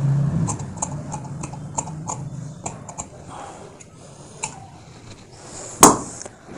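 Scissors snipping through blouse fabric, a run of short crisp cuts about three a second, then a single louder knock near the end.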